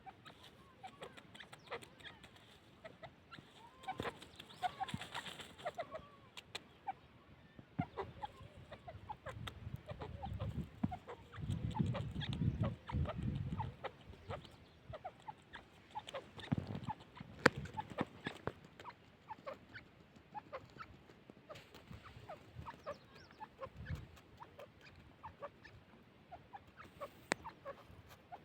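Grey francolin making soft clucking calls and short notes, among many scattered sharp clicks, with a low rumble for a few seconds in the middle.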